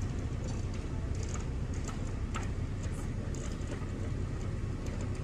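Steady low mechanical rumble heard from inside a car's cabin, with a few faint clicks and ticks over it.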